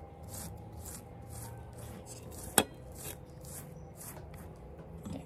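Pastry brush stroking butter-and-chili sauce onto a grilled corn cob: a quick series of short, soft, wet brushing strokes, with one sharp knock about halfway through.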